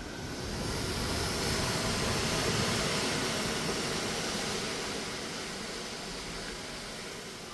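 Ocean waves rushing along the side of a moving cruise ship: a loud hiss that swells over the first couple of seconds and then slowly fades.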